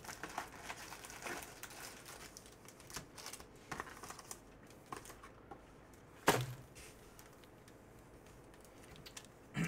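Trading-card packs and their cardboard box being handled: packs rustle and click as they are pulled from the box and stacked on the table, with one sharp tap about six seconds in.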